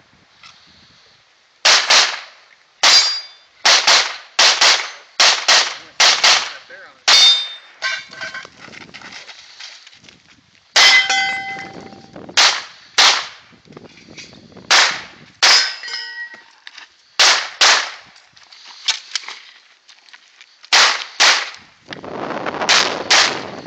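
Smith & Wesson M&P9 Pro 9mm pistol firing a course of fire: about twenty shots, mostly in quick pairs, with a pause of a few seconds about a third of the way in. Short metallic rings follow some shots, as steel targets are hit.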